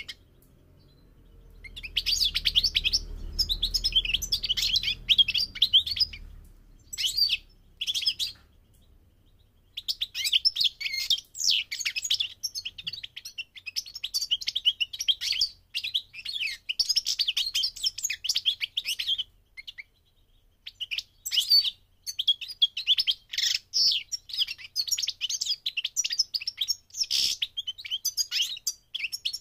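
European goldfinch singing: rapid, high-pitched twittering phrases in several long bursts, with short pauses between them.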